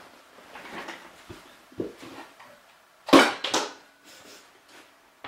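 Faint scattered handling noises, with one short loud knock about three seconds in and a small click near the end.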